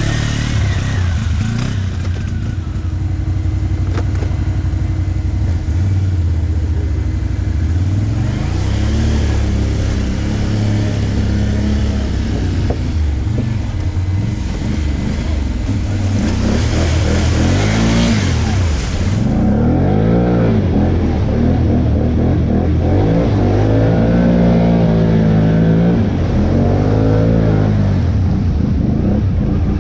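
ATV engines running through deep mud, revved again and again so the pitch rises and falls in repeated sweeps, with the revving busiest in the second half.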